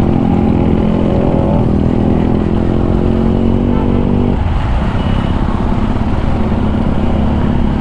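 Motorcycle engine running while riding: it accelerates with rising pitch over the first second or so, holds steady, then drops off about four and a half seconds in as the throttle eases. Wind rumbles on the microphone throughout.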